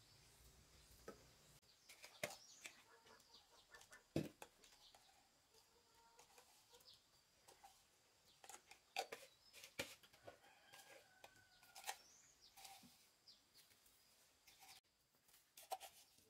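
Faint calls of farm poultry, a few short clucks and a drawn-out call, among scattered light clicks and knocks, the sharpest about four seconds in.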